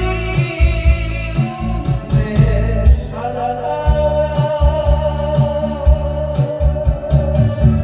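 Trot song with a singer over a band backing of bass, guitar and drums, ending in a long held note with vibrato from about three seconds in.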